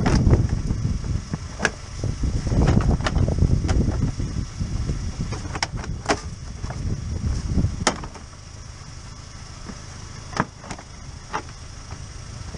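Plastic wheel-arch liner being pushed and flexed into place, giving scattered sharp plastic clicks and knocks. A low rumble fills roughly the first eight seconds, then drops away.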